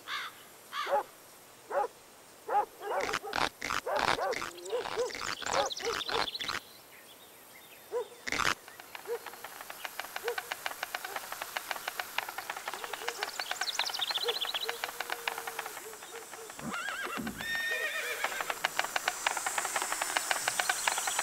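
Cartoon creature sound effects: a quick string of short, squeaky, whinny-like calls, then a single sharp knock about eight seconds in. After that comes rapid, steady clicking with a few more squeaky calls.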